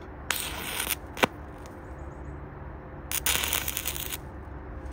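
Stick-welding arc crackling as a flux-coated rod is struck on a steel plate: two short bursts of crackle, one about a third of a second in and one around three seconds in, each under a second, with a sharp tick between them. The arc catches only briefly each time, the sign of an arc that is hard to start and keep going.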